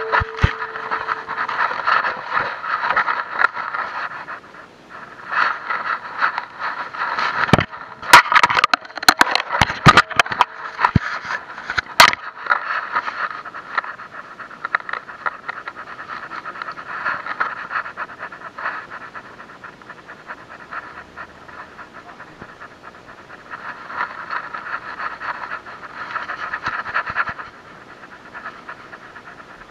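Muffled rubbing and scraping noise from an EKEN H9 action camera inside its waterproof case, worn on a moving dog's collar. The noise comes and goes in surges, with a run of sharp knocks about eight to twelve seconds in.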